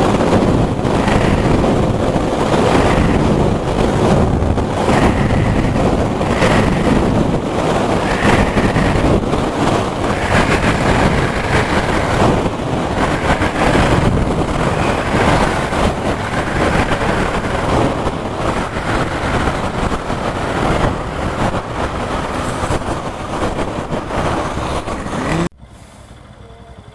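Bajaj Pulsar NS200's single-cylinder engine running at steady cruising speed, around 85 km/h, under heavy wind rush on the rider's microphone. The sound cuts off abruptly near the end to a much quieter level.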